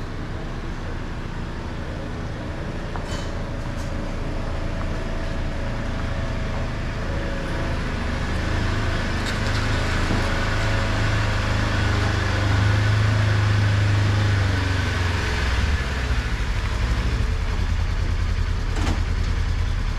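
Motor vehicle on the road, a steady low engine rumble with road noise that builds to its loudest in the middle and then drops back lower.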